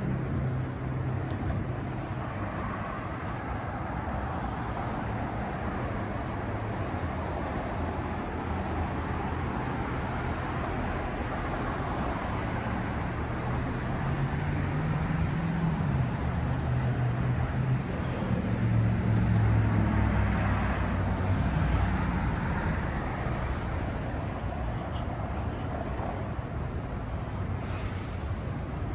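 City street traffic: cars and other motor vehicles running past in a continuous hum. Around the middle an engine rises in pitch, and a little later a vehicle passes close, the loudest moment.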